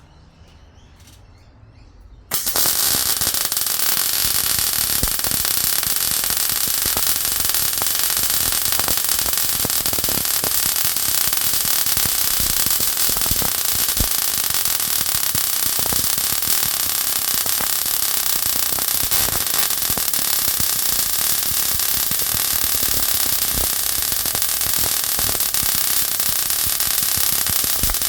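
MIG welding arc from an Arccaptain MIG 200, struck about two seconds in and then running steadily with a dense, even crackle. It is one continuous bead, the trigger latched in 4T mode, laid around a motorcycle exhaust pipe turning on a welding rotator.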